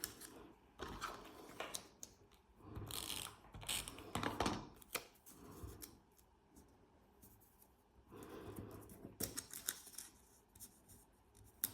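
Scissors cutting paper, with paper being handled between cuts: scattered light clicks and short bursts of snipping and rustling.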